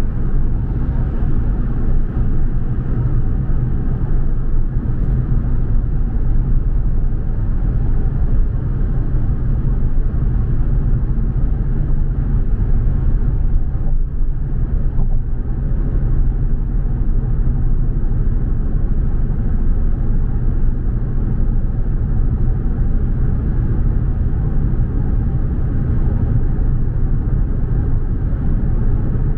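Steady low rumble of a car driving: engine and tyre road noise with no distinct events.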